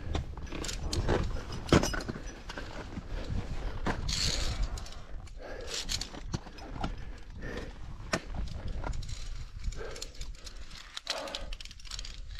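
Via ferrata lanyard carabiners clicking and clinking against the steel safety cable and each other as a climber moves along the cable, with loose metal gear jangling and scraping over rock and snow. Wind rumbles on the microphone underneath.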